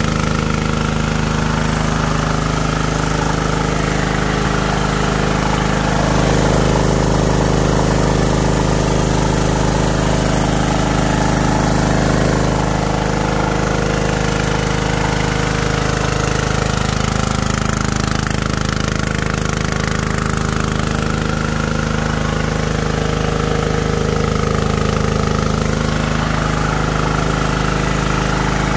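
Bison 3 kVA petrol generator's single-cylinder engine running at a steady speed, with an even, unchanging hum.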